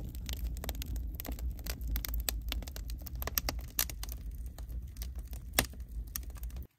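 Wood fire crackling, with irregular sharp snaps over a low rumble and one louder snap near the end; it cuts off suddenly.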